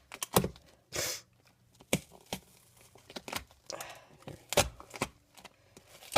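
Box cutter knife slicing through duct-taped cardboard in a series of short scratchy strokes, with clicks and rustles of handling; one longer cut about a second in.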